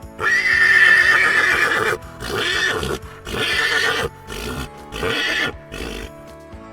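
Horse stallion whinnying: one long, loud, high call, then a run of shorter, weaker pulses that trail off, over background music.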